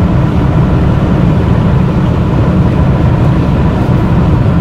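BMW E46 3-Series straight-six engine pulling hard at high speed, heard from inside the cabin, loud and steady with wind and road noise.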